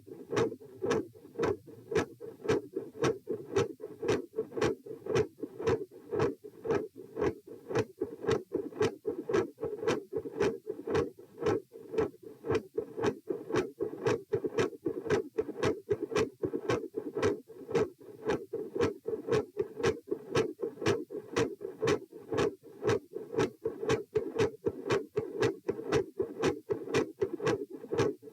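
Human heart sounds heard through a stethoscope: a regular run of lub-dub beats, several a second, the second sound (S2) consistently loud and the first sound (S1) varying in strength.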